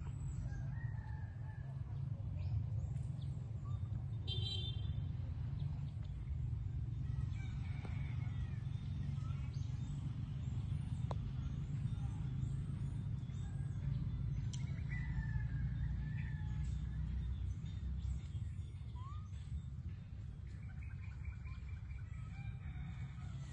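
A steady low rumble with scattered bird chirps and short calls over it, including a buzzy call about four seconds in.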